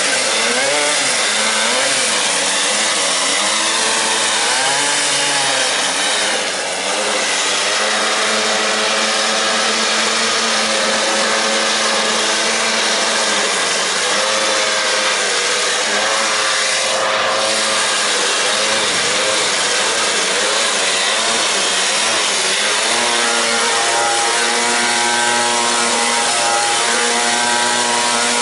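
Small two-stroke gas engine of a quarter-scale RC truck running as it drives, its pitch rising and falling with the throttle and holding steady for stretches.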